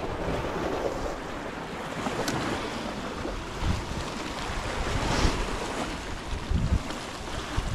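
Sea waves washing on a rocky shore, with gusty wind buffeting the microphone in a low rumble. A single sharp click comes about two seconds in.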